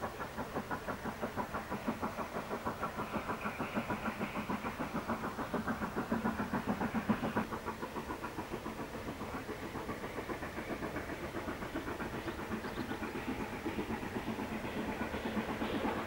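Hejaz Railway steam locomotive working a train, its exhaust chuffing in a rapid, even beat, getting louder near the end as it draws closer.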